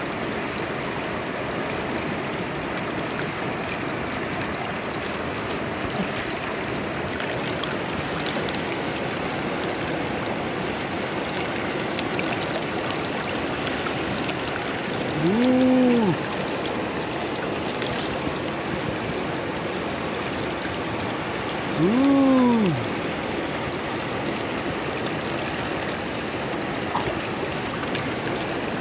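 River water running steadily over rocks. Two short pitched calls, each rising then falling, stand out about 15 and 22 seconds in.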